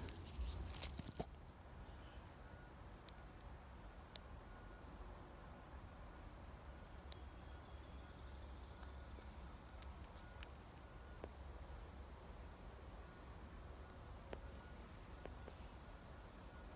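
Faint, steady high-pitched insect trill that breaks off about eight seconds in and starts again about four seconds later. In the first second a few knocks, a fossil rock being dropped into a bucket.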